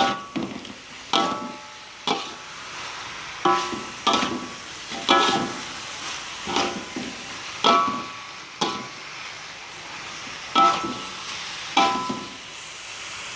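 A metal spatula stirring in a frying pan or wok, striking the pan about a dozen times at irregular intervals with short metallic rings, over the steady sizzle of frying fish and spice paste.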